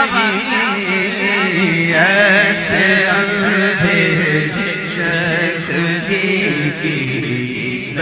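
Male voice chanting an Urdu devotional kalam (naat) a cappella: long, wavering melismatic notes over a low, steady held note.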